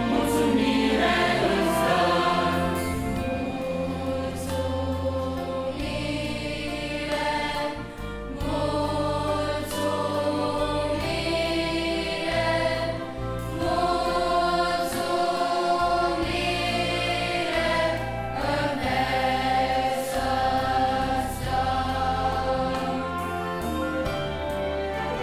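Large children's choir with adult voices singing a Christian hymn in Romanian, in sustained, full chords.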